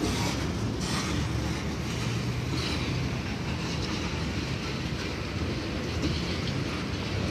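Norfolk Southern mixed freight train's cars rolling past at speed: a steady rumble of steel wheels on the rails.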